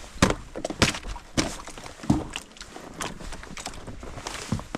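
Ice on a horse's water trough being broken open: a series of about six sharp knocks and cracks, roughly one every half second to second.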